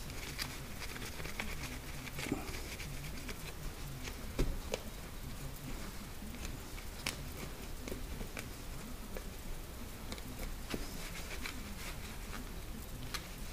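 Paper towel rubbing and wiping over the plastic end piece of a Sub-Zero refrigerator dairy compartment, with scattered light clicks of the plastic being handled and one louder knock about four seconds in.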